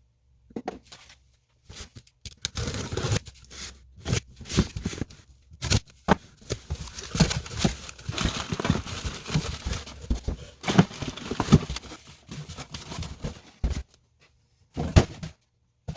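A shipping package being torn open by hand: irregular tearing, crinkling and rustling of packaging with scattered knocks and clicks, stopping near the end with one last short rustle.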